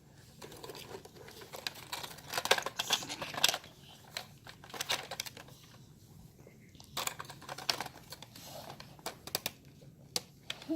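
Plastic toy parts clicking, knocking and rattling as a take-apart toy truck is handled and its drill piece fitted in, in two clusters of quick clicks with quieter stretches between.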